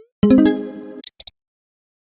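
A short musical sound effect: one held pitched note starts about a fifth of a second in and fades away within about a second. Two faint high clicks follow, then nothing.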